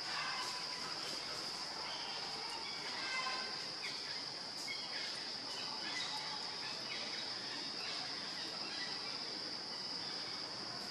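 Steady high-pitched drone of insects, with faint short chirps scattered through the first half.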